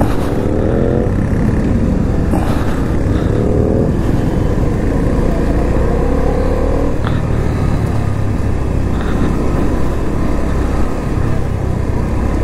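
Motorcycle engine running as the bike rides in a slow convoy, its pitch rising three times as it accelerates, with other motorcycles running close by.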